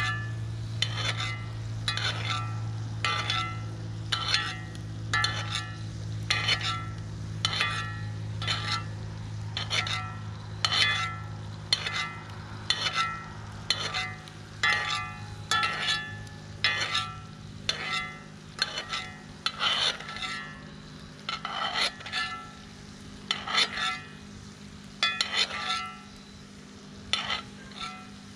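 Butter and steak sizzling in a cast iron skillet while a utensil repeatedly scrapes and taps the pan, about once a second, each stroke with a short ring. Under it a steady low hum fades away about two-thirds of the way through.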